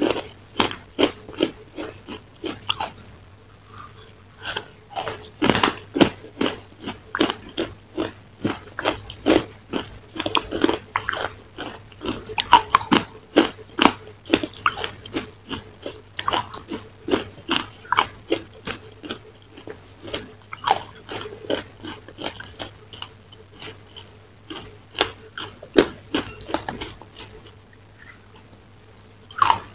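Close-miked biting, crunching and chewing of a crisp chocolate-coated dessert, with sharp crunches coming about one to two a second and a brief pause near the end.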